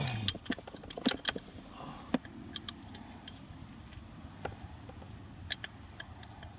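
Irregular light clicks and taps of hands handling the phone and small plastic parts at close range. The clicks are thickest in the first couple of seconds and sparse afterwards, over a steady low hum.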